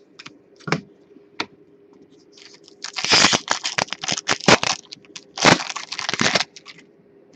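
A few light clicks as cards are set down, then a trading-card pack's shiny wrapper being torn open and crinkled in two spells of a second or two each.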